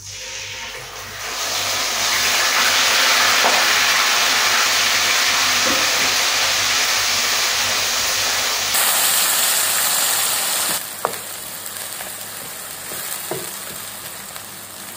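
Ground onion paste sizzling as it hits hot oil with whole cinnamon, cloves and cardamom in a nonstick pan, then frying while it is stirred with a wooden spatula. The sizzle swells loud about a second in and eases somewhat after the middle, with a couple of light knocks as it is stirred.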